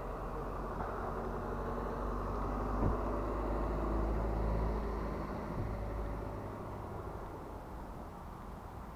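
A car going past on a nearby road: engine and tyre noise that builds to a peak about four or five seconds in, then fades away.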